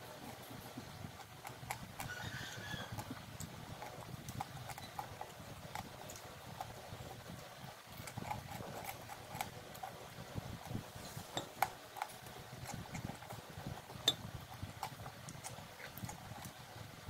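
Close-miked eating sounds: chewing and wet lip-smacking with frequent small mouth clicks as fried tilapia and rice are eaten by hand, over a faint low hum. Two sharper clicks stand out in the second half.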